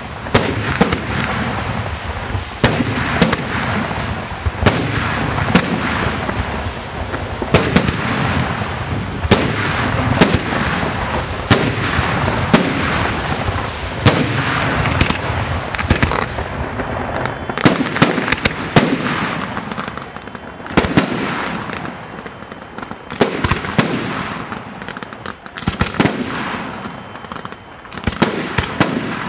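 Aerial fireworks display: a fast barrage of shell bursts, sharp bangs coming about every second over a continuous dense crackle. In the last third the barrage thins, leaving more separate bangs with quieter gaps between them.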